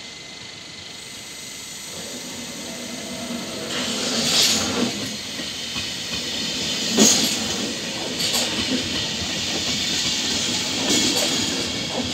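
Deutsche Bahn Intercity train, led by its cab control car, rolling in alongside the platform. The running noise grows louder as it nears, with sharp clacks of the wheels over rail joints and points, the loudest about four and seven seconds in.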